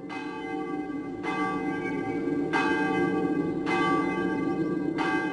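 A bell tolling, five strikes about a second and a quarter apart, each ringing on, over a low steady drone.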